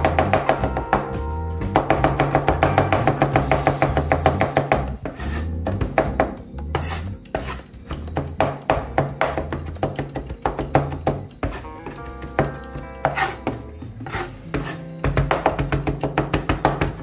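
Chinese cleaver (cai dao) chopping garlic on a wooden cutting board: quick, repeated knocks of the blade on the board, clearest in the middle of the stretch. Background music plays throughout and is loudest at the start and near the end.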